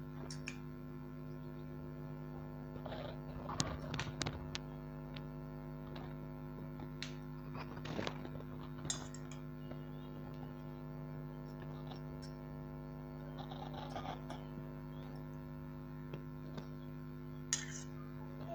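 A steady electrical hum, with a few light clinks and scrapes of a steel spoon against a steel plate as thick custard is spread over bread slices.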